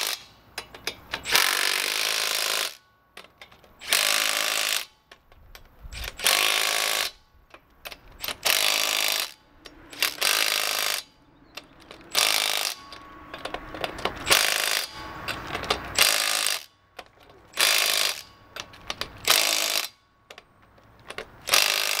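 Impact wrench driving the wheel's lug nuts on, run in about a dozen short bursts of half a second to a second and a half each, with pauses between them.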